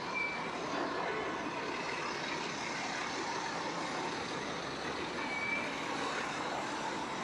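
Busy city street ambience: road traffic running past with a steady wash of engine and tyre noise. Two short high beeps sound, one just after the start and one about five and a half seconds in.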